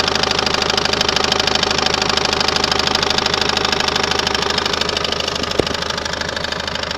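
Citroen C5's 1.6 HDi diesel engine idling with a fast, even rattle, an extra noise from near the crankshaft damper pulley that the owner suspects is a failing damper pulley, the alternator's overrunning clutch or a bearing. One sharp click about five and a half seconds in.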